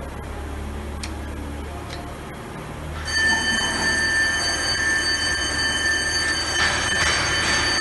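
Schlatter Orion Megaflex jig welding machine running: a low steady hum, then about three seconds in a steady high-pitched whine of several tones sets in and the sound grows louder.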